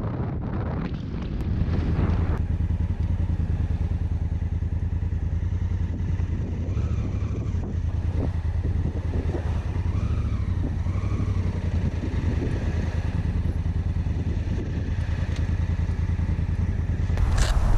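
Honda Africa Twin's parallel-twin engine running with a steady low throb as the bike rolls slowly over a dirt track, the wind noise dropping away about two seconds in. A short clatter near the end.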